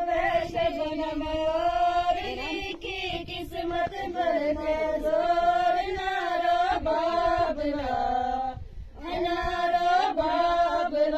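An elderly woman singing a Gojri folk song unaccompanied, in long wavering held notes, with a brief pause for breath about three-quarters of the way through.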